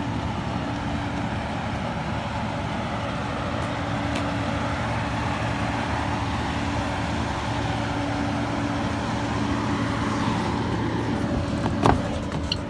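Diesel truck engine idling steadily. A sharp click of the cab door latch comes near the end.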